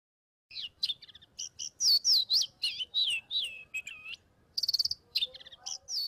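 Oriental magpie robin singing its breeding song: a varied run of clear whistled notes, many sliding up or down in pitch, starting about half a second in, with a quick buzzy trill near the end.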